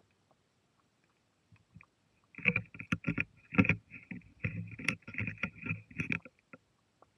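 Waterproof camera housing being moved underwater: irregular knocks and rushing, sloshing water noise begin about two seconds in and keep coming in quick, uneven bursts.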